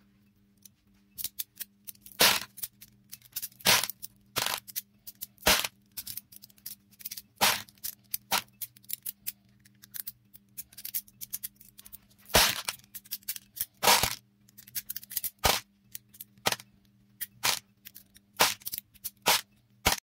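Steel magnetic balls clicking and snapping against a block magnet and against each other as they are pulled off by hand: sharp, irregular clicks, a few much louder than the rest.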